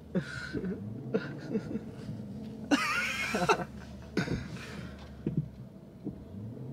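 People laughing and snickering quietly, short broken voice sounds with a louder breathy laugh or cough near the middle.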